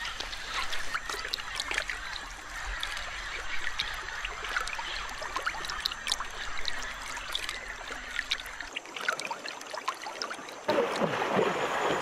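Shallow river water lapping and trickling, with many small ticks and clicks over it. A little before the end, louder splashing of water sets in suddenly.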